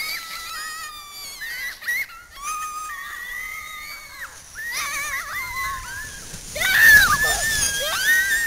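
Children screaming and squealing, long high held cries, while riding a snow tube down a hill. About two seconds before the end the screams get louder, over a low rush of noise as the tube slides up to the camera.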